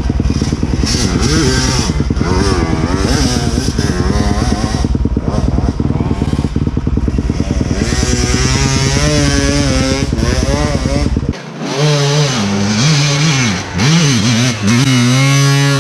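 Enduro dirt bike engine revving hard, its pitch rising and falling again and again as the throttle is worked. About eleven seconds in, the deepest rumble drops away suddenly while the revving carries on.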